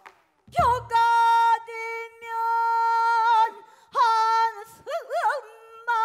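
Female pansori singer in the sorrowful gyemyeon mode: long held notes that break into wide, shaking vibrato and pitch bends. A low stroke of the buk barrel drum comes about half a second in.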